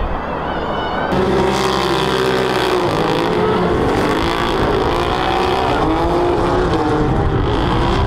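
A lone rally car sliding on ice gives a hiss with a faint high whine for about the first second. Then the sound cuts abruptly to a pack of side-by-side buggies racing on ice, several engines revving at once with their pitches rising and falling.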